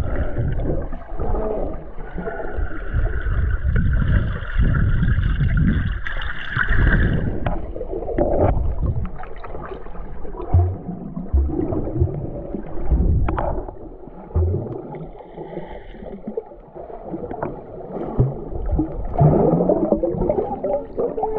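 Muffled underwater sound heard from a submerged camera: water sloshing and gurgling, with scattered thumps and pops. A steady high tone holds for the first seven seconds, then stops.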